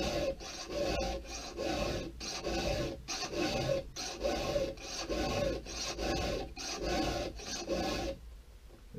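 Round file rasping across the cutters of a chainsaw chain in a steady run of strokes, roughly one every three-quarters of a second, sharpening the chain. The strokes stop about eight seconds in.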